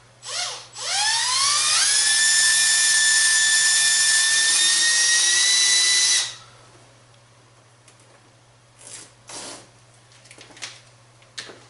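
A cordless drill with a bit just under an eighth of an inch drills a pilot hole for a self-tapping snap screw. There is a brief blip of the trigger, then the motor whine rises in pitch over about a second, runs steady for about four seconds and stops suddenly. Faint clicks and handling noises follow.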